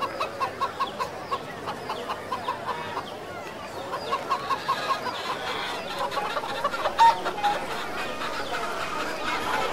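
A flock of hens clucking, in rapid runs of short clucks at about five a second, with one louder call about seven seconds in.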